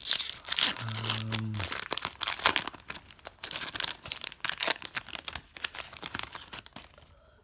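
Plastic wrapper of a hockey card pack being crinkled and torn open: a dense, crackly rustling that dies away near the end.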